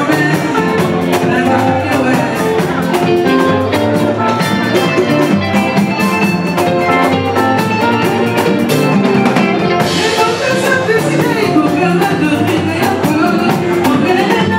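Live band playing: electric guitars, bass guitar and drum kit, with a woman singing lead over them. The cymbals get busier about ten seconds in.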